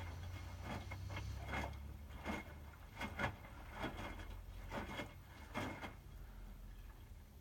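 Hotpoint WMFUG 942 washing machine tumbling a medium load of towels in the heating phase of a 60° wash: a steady low motor hum with a series of short knocks and swishes as the drum turns, easing off near the end.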